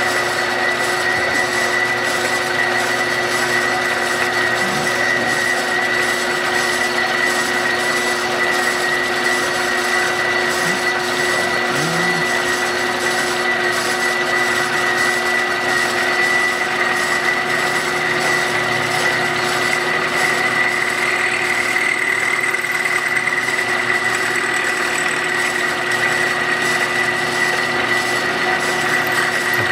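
Tree vertical milling machine running, its end mill taking a light cut in a metal part clamped in a small vise, with a steady high whine from the spindle drive over the hiss of the cut.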